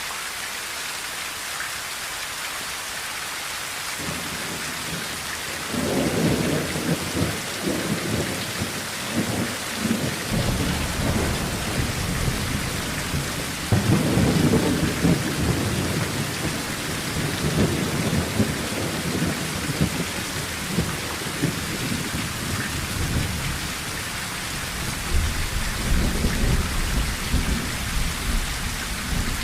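Heavy rain on a tin roof, a steady hiss, with thunder rumbling in about four seconds in. The rumbling rolls on in waves, loudest about halfway through and swelling again near the end.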